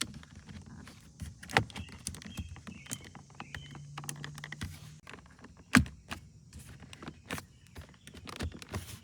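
Plastic window switch panel of a Mercedes door being pressed and snapped into the door trim: a series of sharp plastic clicks and knocks, the loudest about one and a half seconds in and again near six seconds. A low steady hum sounds for about two seconds in the middle.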